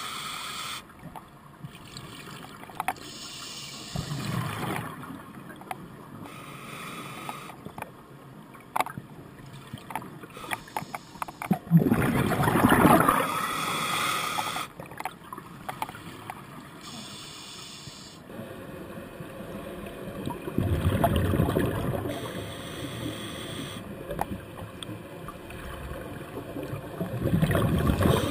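Scuba regulator exhaust bubbles gurgling underwater, heard through a camera housing. Three loud surges come several seconds apart, with quieter stretches of small clicks and knocks between them.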